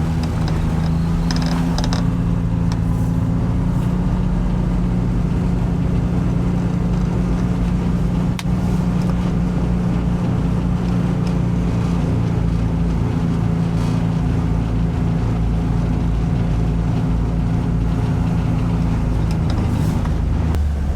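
Vehicle engine running at a steady speed with road noise, heard from inside the vehicle as it drives along.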